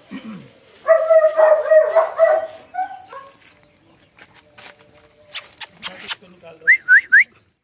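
Saint Bernard puppy whimpering in a high-pitched whine for about a second and a half, starting about a second in. A few sharp clicks and three short rising squeaks follow near the end.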